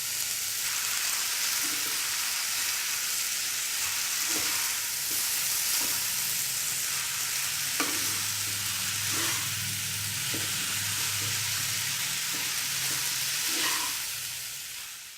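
Chowmein noodles and vegetables sizzling in hot oil in a pan while being stirred and mixed, with a few faint knocks of the stirring utensil against the pan. The sizzle fades out near the end.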